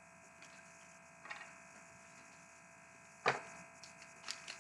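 Faint steady electrical hum with soft trading-card handling: a light rustle about a second in and a single sharp tap a little after three seconds, then a few small ticks.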